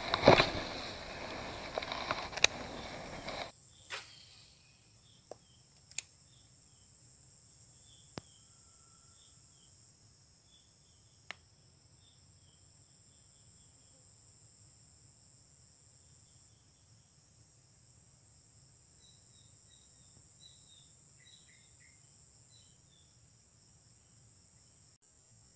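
Close rustling and knocks of hands handling a fishing rod for the first few seconds, then quiet swamp ambience: a steady high-pitched insect drone with scattered short high chirps and a few faint ticks.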